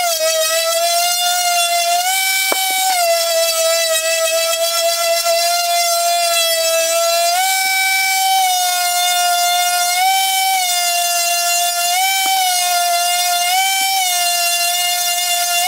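Electric sheet sander running while sanding a hardwood cutting board: a loud, steady, high motor whine that steps slightly up and down in pitch now and then, then winds down with a falling pitch at the end.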